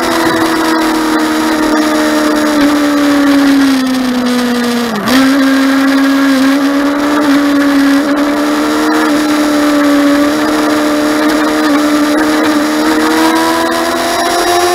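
Motorcycle engine running hard while under way, with wind rushing past. Its pitch eases down over the first few seconds and dips sharply for a moment about five seconds in, then holds steady and climbs again near the end.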